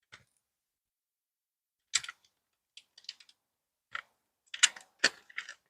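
Sharp hard-plastic clicks and knocks from handling a Nerf Rival Takedown foam blaster. They are scattered irregularly and come thicker and louder in a cluster near the end.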